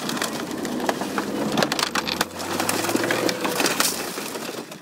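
A tank's tracks crushing a Peugeot 306 hatchback: a dense run of cracks and crunches from buckling sheet metal and shattering window glass, over a low engine drone.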